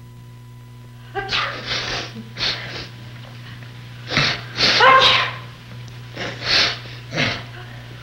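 A person sneezing and gasping in a run of about seven short, sharp bursts beginning about a second in, the loudest a voiced sneeze about five seconds in. A steady low hum runs beneath.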